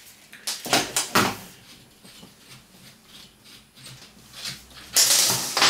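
Clatter of 3D-printed plastic robot-leg parts being handled as the leg is pulled off the body. A few sharp knocks about half a second to a second in, faint ticks, then a louder scraping rustle near the end.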